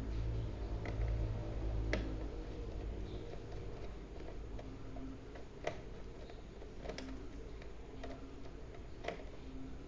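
Scattered sharp clicks and ticks as a laptop is taken apart by hand, with a low rumble of handling noise in the first few seconds.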